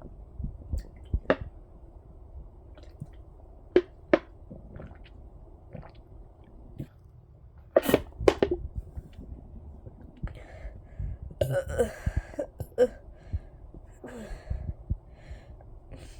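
Close-miked body sounds from a stomach bloated with water: a low rumble underneath, scattered sharp smacks and clicks, the loudest two about eight seconds in, and a longer throaty sound about eleven and a half seconds in.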